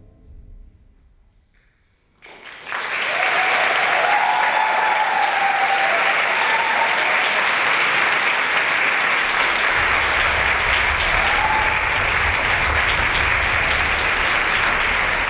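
Music fading out, then a theatre audience's applause starting suddenly about two seconds in and holding steady.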